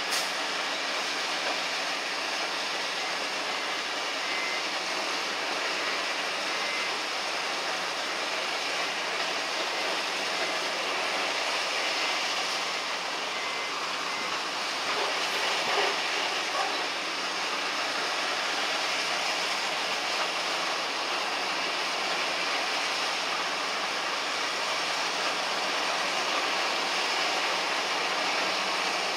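Ice-loading machine running as crushed ice pours into it from a tipping dump truck for loading onto a fishing boat: a steady rushing mechanical noise that swells briefly about halfway through.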